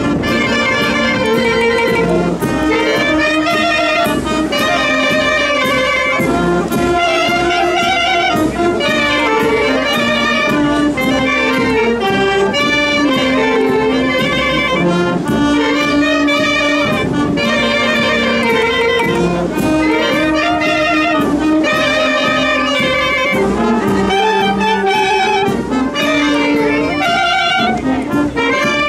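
Brass band with saxophones playing a tune, melody and accompaniment carrying on without a break.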